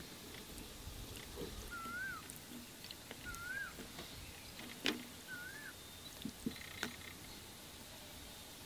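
A bird whistles a short wavy note three times, about every one and a half seconds, over quiet outdoor background. A few light knocks fall between and after the calls, the loudest about five seconds in.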